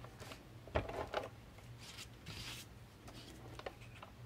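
Cardstock strips being handled and a tape runner laying adhesive on them: a few light taps and paper rustles about a second in, then a brief soft hiss about two seconds in.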